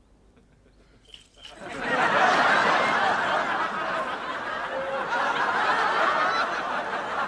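Studio audience laughing, breaking out after a near-silent pause about a second and a half in and carrying on to the end.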